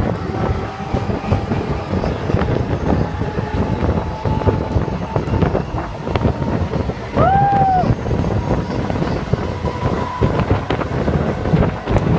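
Electric suburban train running, with a continuous rattle and clatter and wind noise on the microphone. A short horn blast sounds about seven seconds in, rising briefly and then held for under a second.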